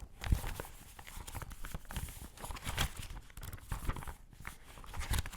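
Close-miked handling of a book: its paper pages rustling and crinkling in quick irregular strokes, with a few soft knocks among them.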